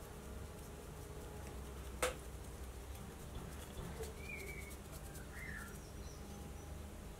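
Quiet background with a steady low hum, a single sharp tap about two seconds in, and a couple of short, faint bird chirps past the middle.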